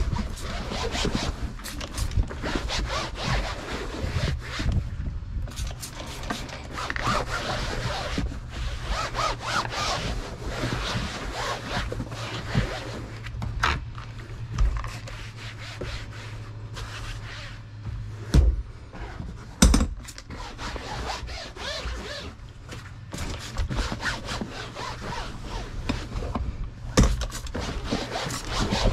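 Microfiber towel rubbing and wiping over a vinyl boat seat in quick, irregular strokes, with a few short spritzes from a trigger spray bottle.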